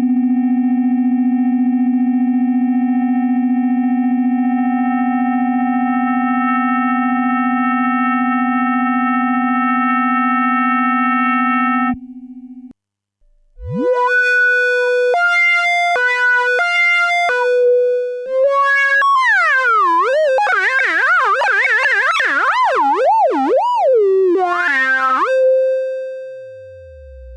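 Synthesized electronic sound effects. A steady buzzy tone is held for about twelve seconds and cuts off suddenly. Then comes a quick rising sweep, a run of beeps stepping between a few pitches, a fast wobbling warble, and a held tone that fades away.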